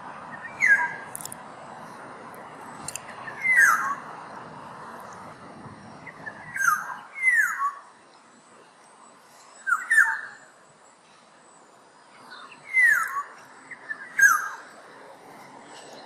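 Black-naped oriole calling: about seven short notes, each falling in pitch, spaced a few seconds apart and some in quick pairs, with thin high chirps alongside them.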